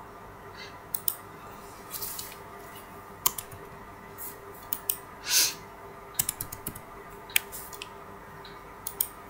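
Irregular computer mouse and keyboard clicks while working in CAD software, with one brief rushing sound about halfway through.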